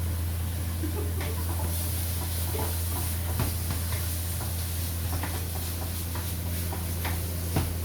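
Spatula scraping and clicking against a wok as vegetables are stir-fried, with irregular knocks, the loudest about three and a half and seven and a half seconds in, over a steady low hum.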